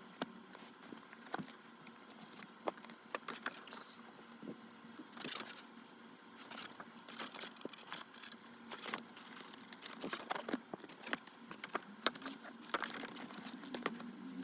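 Hands unboxing an Apple Watch Ultra: irregular light clicks, taps and scrapes, with patches of packaging rustling.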